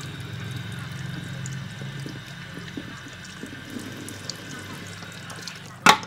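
Water spraying from a salon shampoo basin's handheld shower head and rinsing hair into the sink, a steady flow that fades out near the end. A single sharp knock follows just before the end, the loudest sound here.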